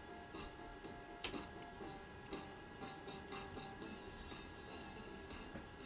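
A single high pure test tone from a mini projector's built-in speaker, gliding slowly and steadily downward in pitch, as a hearing-test frequency sweep is played for a loudness test. A sound level meter beside it reads about 80 dB.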